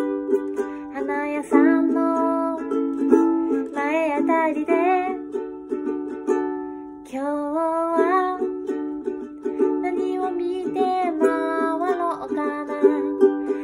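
Ukulele playing chords, with a woman's singing voice joining in from time to time.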